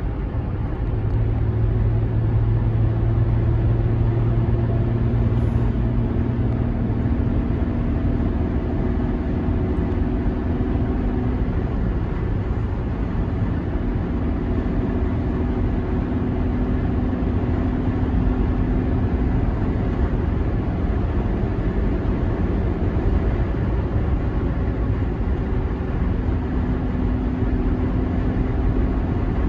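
Range Rover cruising at highway speed, heard from inside the cabin: a steady drone of engine and road noise, with a deeper engine note standing out for the first several seconds.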